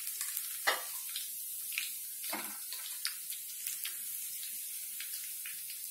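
Boondi (gram-flour batter drops) deep-frying in hot oil in a kadhai: a steady sizzling hiss with scattered crackles. Two sharper clicks come about two-thirds of a second in and again near two and a half seconds.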